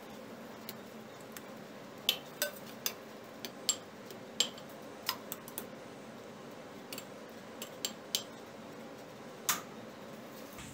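A metal spoon tapping and scraping against a glass baking dish as thick tomato sauce is spooned in and spread: a scattering of light, irregular clicks.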